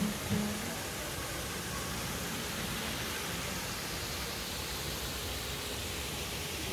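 Steady, even outdoor hiss with no distinct events, after the last notes of acoustic guitar music in the first moment.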